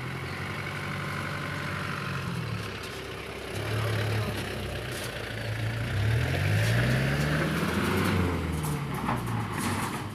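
Mahindra Jayo DI3200 light truck's diesel engine pulling away. Its pitch climbs as it accelerates about halfway through, then drops near the end.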